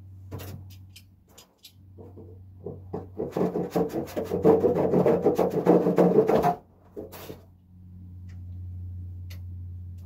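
Rapid rhythmic rubbing or scraping by hand, about five strokes a second, starting about two seconds in, getting louder and stopping suddenly about four seconds later, over a steady low hum.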